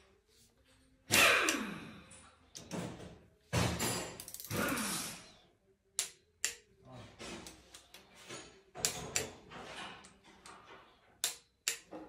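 Socket ratchet clicking and metal tools clinking as the camshaft bearing cap bolts on a cylinder head are turned and tightened. There are sharp single clicks, a quick run of ratchet clicks about four seconds in, and a few louder rushing sounds that fall in pitch.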